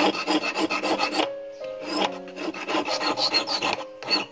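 Hand file rasping across the point of a black-steel wire fishing hook in quick back-and-forth strokes, sharpening it. The strokes come in runs with short breaks about a second in and near the end. Soft background music with held notes plays underneath.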